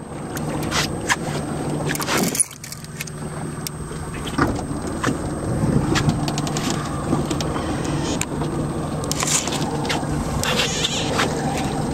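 A boat's engine running steadily, with scattered sharp clicks and knocks over it.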